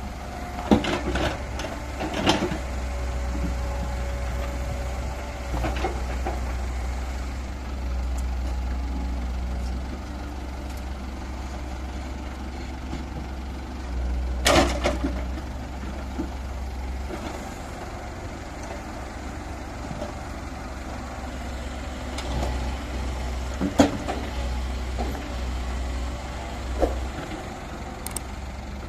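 Diesel engines of a Komatsu hydraulic excavator and a Mahindra 575 DI tractor running with a steady low rumble. Several sharp clanks and thuds come from the excavator bucket digging and dumping soil into the tractor trolley, the loudest about 15 and 24 seconds in.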